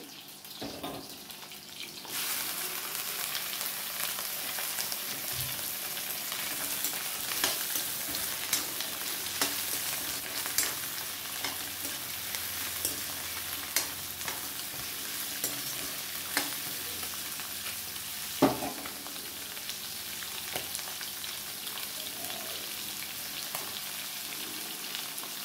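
Raw chicken pieces going into hot oil and onions in a metal kadai: a loud sizzle sets in suddenly about two seconds in and carries on as a steady frying hiss. Through it run the clicks and scrapes of a metal ladle stirring against the pan, with one sharper knock about three quarters of the way through.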